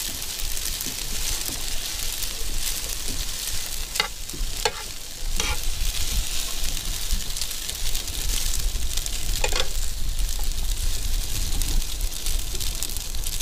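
Lobster chunks and linguine sizzling in garlic butter in a skillet on a grill, stirred and tossed with a plastic spatula. A steady hiss runs throughout, with a few short scrapes of the spatula against the pan.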